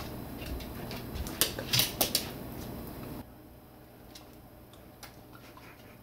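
Four or five sharp clicks and clinks of hard objects, close together about one and a half to two seconds in, over a steady hum that drops away suddenly a little after three seconds; a few faint ticks follow.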